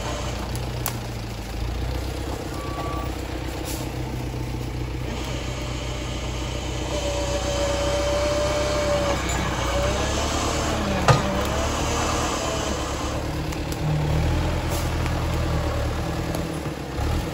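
An LKT 81 skidder's diesel engine running steadily, with one sharp click about two-thirds of the way through.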